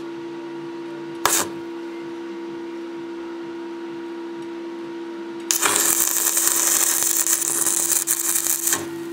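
Stick arc welder striking an arc on a broken crankshaft to weld the crack: a brief strike about a second in, then the arc burns with a loud, crackling hiss for about three seconds, laying a tack weld. A steady electrical hum runs underneath.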